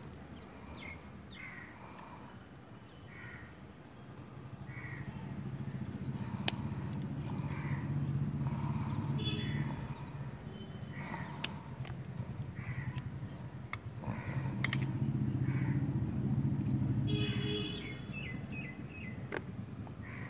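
A crow cawing over and over, about once a second. Beneath it a vehicle engine hum swells twice, and there are a few sharp clicks.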